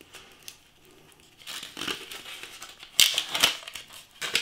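Aluminium foil pie tray crinkling and scraping as a pie is worked loose from it. It comes in irregular bursts after a quiet first second or so, loudest about three seconds in, starting with a sharp click.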